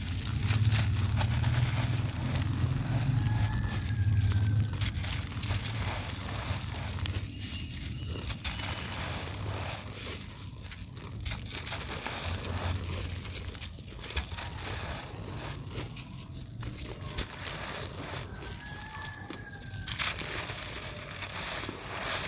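Gritty cement shapes crumbling and breaking apart: dense, irregular crackling and crunching full of small sharp clicks.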